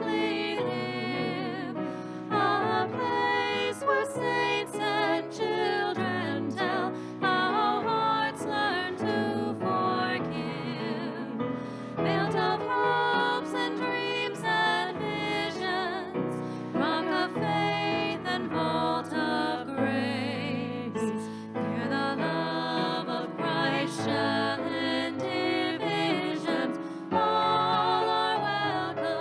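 Music: a singing voice with wavering held notes over instrumental accompaniment.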